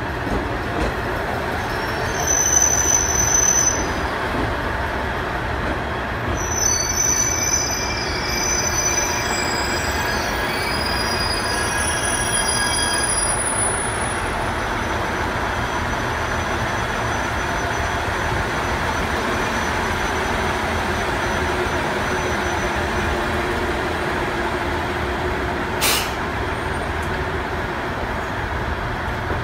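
Train running slowly through the station with its wheels squealing in short spells of high thin tones through the first half, over a steady rumble. A single sharp click comes near the end.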